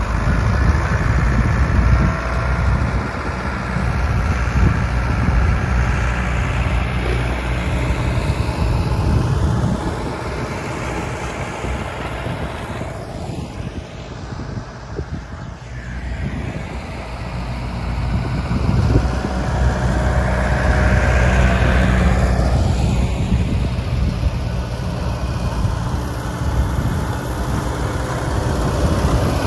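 Several old diesel tractor engines running as the tractors drive around in a field, the sound swelling and easing as they pass near and move away.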